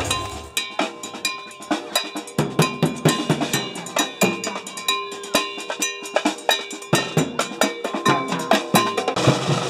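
A troupe of drummers playing large bass drums and snare drums together in a fast, driving rhythm, with a few held tones sounding between the hits.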